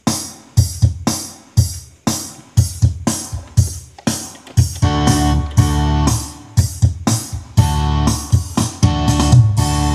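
Yamaha PSR-S750 arranger keyboard playing an auto-accompaniment style: a drum beat at about two hits a second, joined by sustained chords about four seconds in. The sound comes out clean, without the noise the keyboard had before: its audio fault has been repaired.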